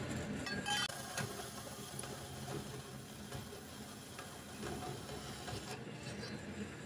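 Stainless steel exhaust tubing clinking and scraping against the steel table of a vertical bandsaw during the first second or so, then a steady low mechanical hum.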